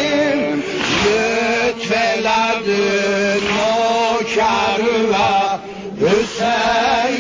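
Male voices chanting a Shia devotional lament (maddahi) in Azerbaijani Turkish, wavering melodic lines over a held low note, with a brief break about six seconds in.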